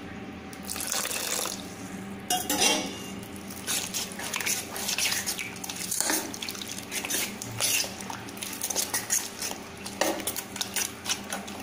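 A steel spoon stirring and scraping thick rava batter in a stainless steel bowl, with repeated clinks of metal on metal. At the start, water is poured into the batter from a cup.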